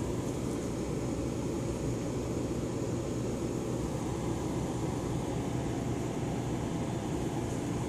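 A steady mechanical hum with an even hiss over it.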